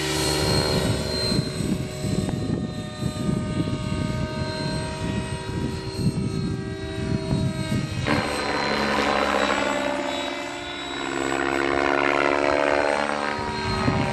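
Electric Align T-REX 700E radio-controlled helicopter flying overhead: a steady whine from its motor and drive gears over the whoosh of the rotor blades. About eight seconds in the tone starts to sweep and shift as it moves across the sky.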